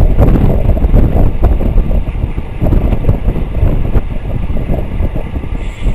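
Wind buffeting the microphone of a bike-mounted camera travelling at about 25 mph: a loud, uneven low rush, a little weaker after about two seconds.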